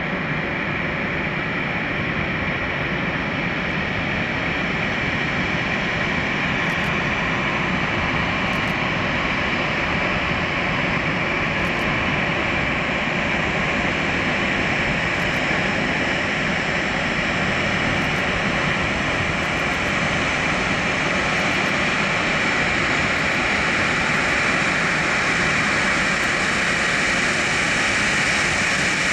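A Boeing 737-800's CFM56-7B turbofan engines at taxi power: a steady jet whine over a broad rush. The sound grows gradually louder as the airliner taxis closer.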